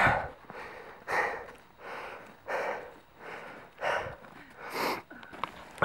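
Heavy, puffing breaths close to the microphone, about six in a row at irregular gaps of roughly a second, from someone walking uphill through snow.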